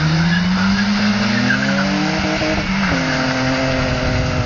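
Two cars, a VW Golf II GTI and a BMW E30 320i, accelerating hard together. Engine pitch climbs for about three seconds, drops sharply at a gear change, then holds steady as they pull away.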